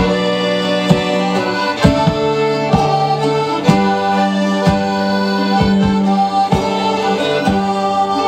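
Folk band playing an instrumental tune led by accordion-type squeezeboxes, with held chords and a sustained bass note under the melody. A steady beat sounds about once a second.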